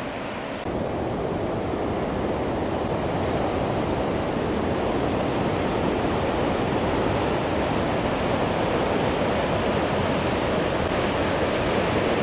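Surf breaking on a sandy beach: a steady wash of rolling waves, a little louder after the first second.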